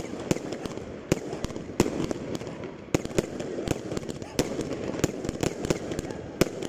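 Aerial fireworks going off shot after shot, sharp pops about two to three a second, irregularly spaced, over a steady background hiss.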